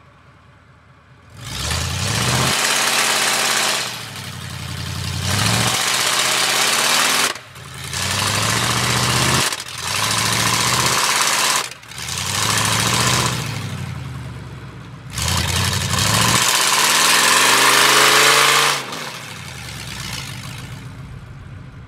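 Ford F-150 pickup stuck in mud, its engine revved hard about six times in a row, the pitch climbing and falling with each surge. Its rear tyres spin and spray mud under each rev.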